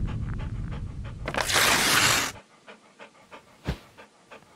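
Intro sound effects: a low rumble fading out, then a loud whoosh about a second and a half in that cuts off sharply. After it comes a dog panting quietly in quick, short breaths.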